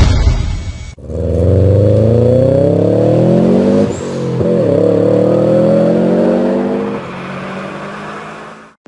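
Car engine revving up under acceleration, its pitch climbing steadily. The pitch dips about four seconds in, then climbs again before the sound cuts off near the end. It opens with a brief whoosh.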